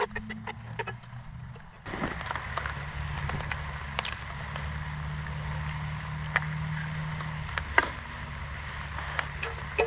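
A metal spoon scraping and clinking in a cast-iron Dutch oven, in quick repeated clicks, for about the first two seconds. Then a steady low rumble, with a few single sharp clicks.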